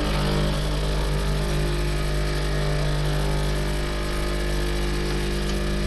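Capsule coffee machine's pump running with a steady buzzing hum as it pushes hot water through; with no capsule loaded, only hot water comes out.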